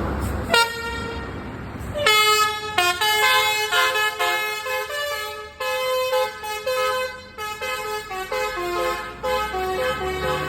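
Bus telolet horn, a multi-tone musical horn, sounding one short note and then, about two seconds in, playing a quick tune of many stepping notes.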